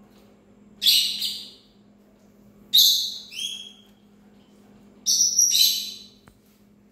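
A parrot giving three loud, harsh calls about two seconds apart, each in two quick parts, over a faint steady hum.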